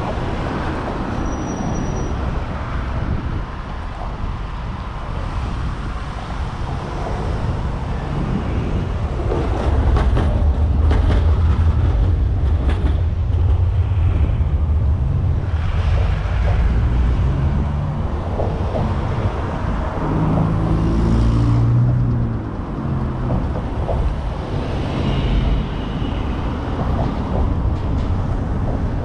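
Street traffic: motor vehicles passing, with a heavy vehicle's deep engine rumble swelling about nine seconds in and fading after about twenty-two seconds.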